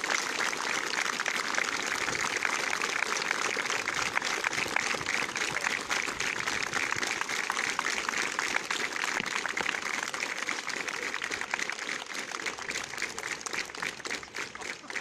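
Crowd applauding, many hands clapping together, dying away over the last few seconds.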